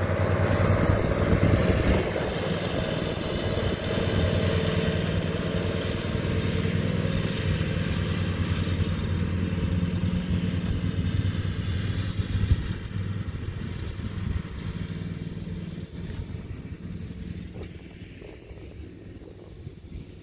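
Zero-turn riding lawn mower's engine running steadily under mowing load, growing fainter over the last several seconds as the mower drives away.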